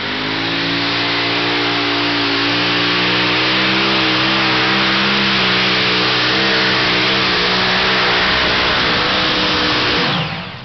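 Multi-engine modified pulling tractor running flat out as it drags the weight sled down the dirt track: a loud, steady engine note that climbs a little in pitch over the first couple of seconds, then drops away suddenly near the end as the pull ends.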